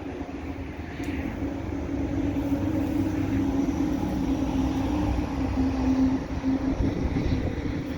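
Steady mechanical drone of a passing or nearby vehicle, a low rumble with a hum. It swells from about a second in and eases off near the end.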